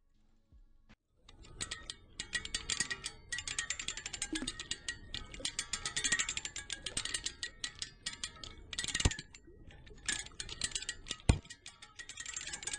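Background music with a fast clicking, ticking rhythm, coming in about a second after near silence, with two sharp hits in the second half.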